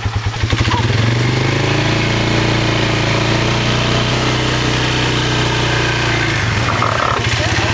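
Quad bike (ATV) engine pulling away from a slow pulsing idle about a second in, then running steadily as the quad rides along; it eases off briefly near the end and picks up again.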